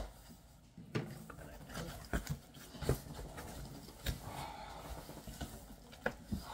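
Handling noises from unpacking a large cardboard box: a few separate knocks and thumps, with a short rustle of packaging about halfway through.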